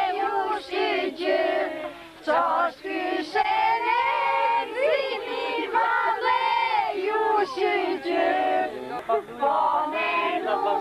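A group of voices singing a traditional Albanian wedding song together, unaccompanied, with the melody moving in short phrases.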